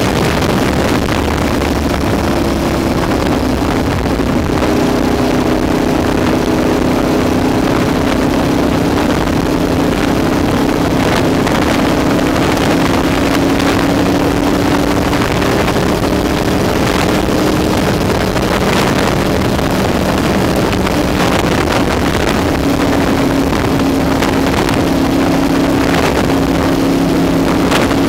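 Ducati 1098 superbike's L-twin engine running at a steady highway cruise, its pitch drifting only slightly with the throttle, under a constant rush of wind over the bike-mounted microphone.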